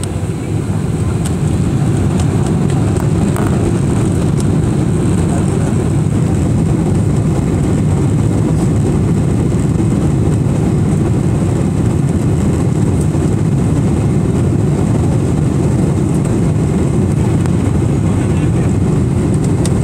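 Boeing 777's twin jet engines heard from inside the cabin, a loud, steady low noise that builds over the first second and a half and then holds level. This is typical of the engines running up to take-off thrust for the take-off roll.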